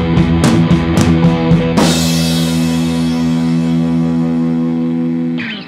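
Background rock music with guitar and drums: the drums beat steadily, then a final chord rings out from about two seconds in and is cut short near the end.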